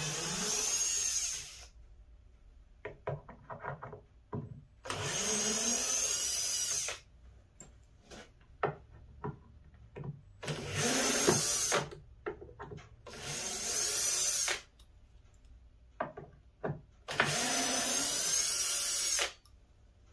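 Milwaukee M18 cordless drill/driver backing out screws: five runs of about two seconds each, each spinning up at the start, with small clicks and knocks of handling between them.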